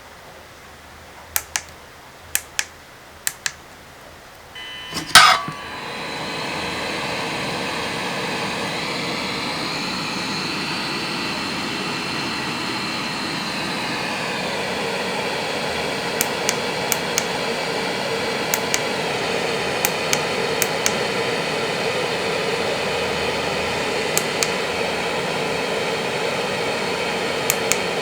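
FNIRSI SAG-55 hot air rework gun's blower fan starting up about five seconds in, after a sharp click, then running steadily with a rushing airflow and a faint whine. A few light clicks come before it starts and now and then while it runs.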